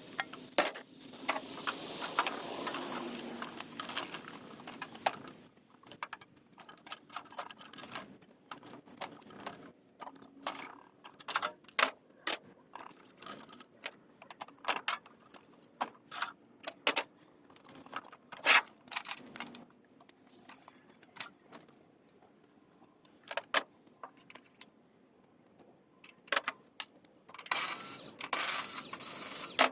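Irregular clicks, clinks and knocks of small hard objects being handled, with denser rustling and clattering over the first few seconds and again near the end.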